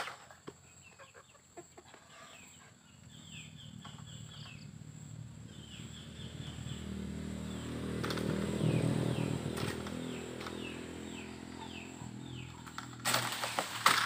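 Oil palm frond being cut with a long-poled harvesting sickle (egrek), ending in a loud rushing crash about a second before the end as the cut frond falls through the palm leaves. A low droning hum swells through the middle and fades, and short falling bird chirps come and go.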